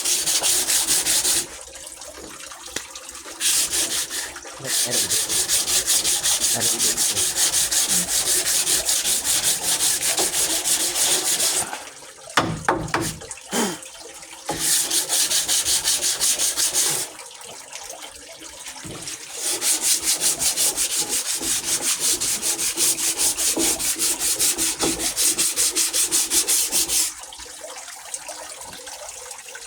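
Sandpaper rubbing on wood in long runs of fast back-and-forth strokes, several seconds at a time, with short pauses between runs.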